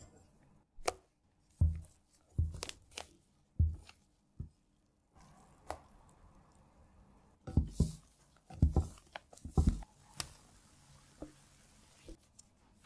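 A white spatula working meringue and matcha batter in a stainless steel mixing bowl, making a series of short, soft knocks and scrapes. The knocks come in two groups, one in the first few seconds and a second about eight seconds in.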